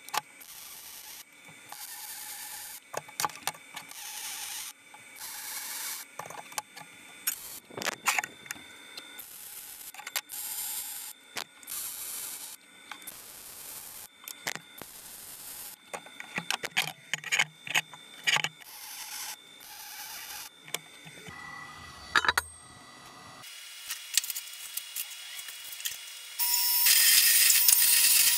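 MIG welder laying a series of short tack welds on steel tubing: crackling bursts, each under a second, with short pauses between. In the last second or so, a horizontal metal-cutting band saw runs through steel flat bar, louder than the welding.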